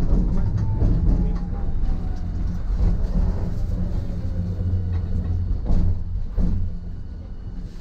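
Hiroshima Electric Railway type 1000 tram slowing to a stop at a platform: a steady low rumble from the running gear under a thin motor whine that falls slowly in pitch. The sound fades as the tram slows, with a couple of short knocks near the end.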